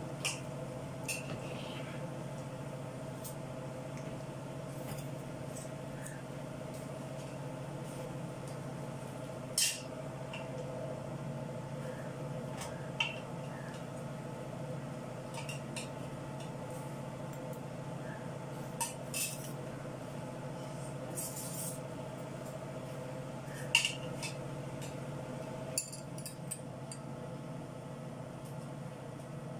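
Metal spoon and fork clinking and scraping against an aluminium pressure cooker pot as food is stirred, with a few sharp clinks scattered through, over a steady low hum.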